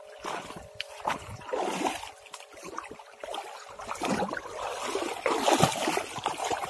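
River water splashing and sloshing in the shallows in irregular bursts, louder in the second half.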